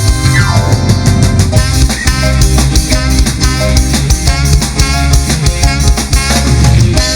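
Live dangdut band playing the instrumental introduction of a song: drum kit and bass keep a steady beat under a melody line, which opens with a quick descending run. No singing yet.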